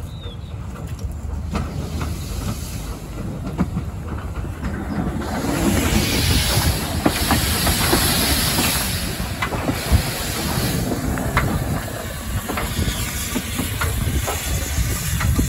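Small steam tank locomotive passing close by, with a loud hiss of steam from about five seconds in over the rumble of its running gear, and scattered sharp clicks and knocks.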